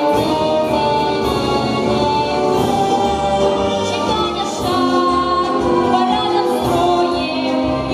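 A teenage girl singing a patriotic pop song solo into a microphone, holding long notes over a backing track with a steady beat.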